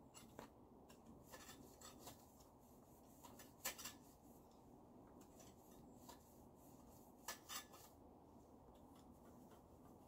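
Near silence with faint hiss, broken by scattered soft scrapes and clicks: a sharper pair of clicks a little under four seconds in and another pair about seven and a half seconds in.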